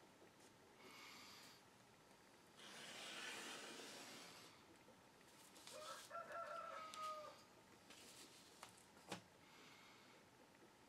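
Quiet workbench handling of large paper plans: a soft rustle of paper being moved, a thin drawn-out tone lasting about a second and a half around the middle, and one sharp tap near the end.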